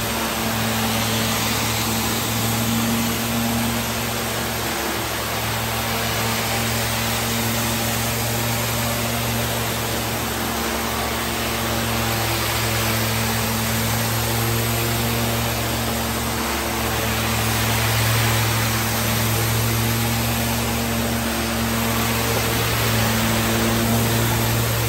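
Hard-surface spinner tool of a tile and grout extraction cleaner running over a tile floor: a steady loud hiss of hot-water spray and vacuum recovery over a constant machine hum.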